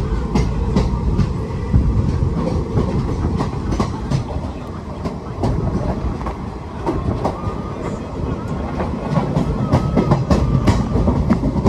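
Indian Railways train rolling into a station, its wheels clicking over the rail joints over a steady low rumble.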